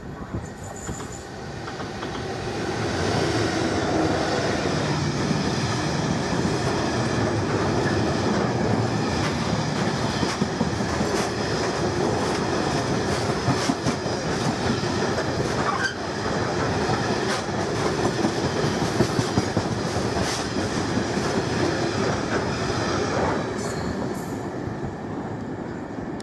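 Class 66 diesel locomotive passing at speed, followed by a long rake of engineering wagons whose wheels clatter rhythmically over the rail joints. The sound builds over the first few seconds as the locomotive arrives, holds steady while the wagons go by, and eases off near the end as the last wagon passes.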